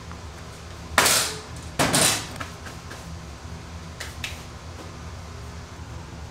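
Kitchen clatter: two loud knocks of utensils or trays against a work counter, about a second and two seconds in, and two fainter clicks a little after four seconds, over a steady low kitchen hum.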